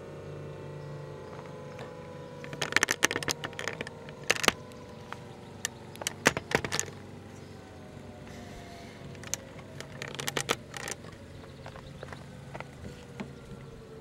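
Thunderbolt 1000T tornado siren winding down after a test, its several tones falling slowly in pitch over a low steady hum. Clusters of sharp clicks and rattles come about three seconds in, around six seconds in and again around ten seconds in, louder than the siren.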